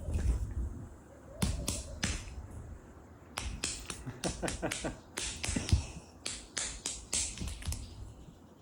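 A string of sharp, irregular clicks and taps, a dozen or more, mixed with a few low thumps.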